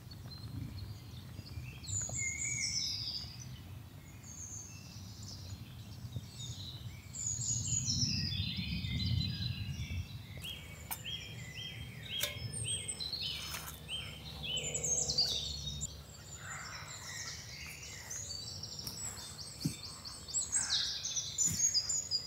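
Wild songbirds chirping and singing, with short high calls and trills throughout and a run of evenly repeated notes in the middle, over a low steady background rumble.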